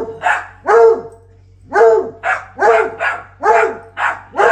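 Dog barking repeatedly in sharp, loud barks: three in quick succession, a brief pause, then about six more at an even pace.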